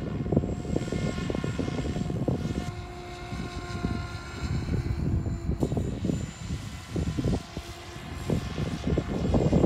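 SAB Goblin Kraken 580 electric RC helicopter in flight: a thin steady whine from its 12S electric motor and drivetrain, shifting in pitch a couple of times as it manoeuvres, over a loud uneven low rumble.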